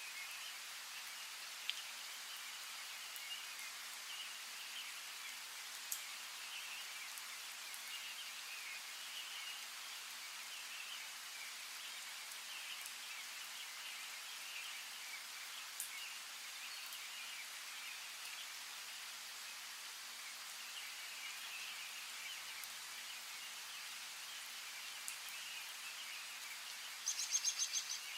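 Forest ambience: a steady hiss of running water under continual faint bird chirping, with a few soft clicks. Near the end there is a short, rapid, stuttering bird call.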